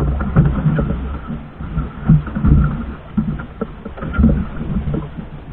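Water slapping against the hull of a small outrigger fishing boat rocking at sea, with irregular low thumps and surges.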